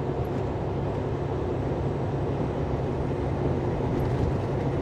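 Semi truck on the move: a steady, even drone of engine and road noise with no change in pace.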